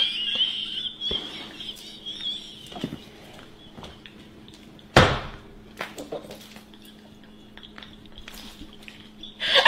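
A woman's high-pitched, squealing laugh that fades over the first couple of seconds into quieter laughter, with one sharp smack about five seconds in and another loud burst of laughter near the end.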